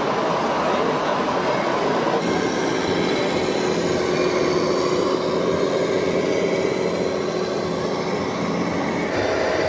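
Steady running noise of radio-controlled model trucks driving on a layout, with a few faint steady tones in it. The sound changes abruptly about two seconds in.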